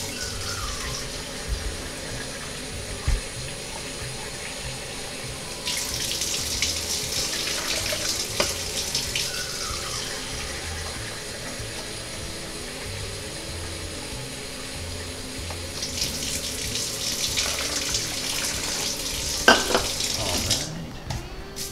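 Kitchen faucet running into a stainless sink, left on to get the water hot. The flow swells twice and is shut off just before the end, with a few light knocks at the sink.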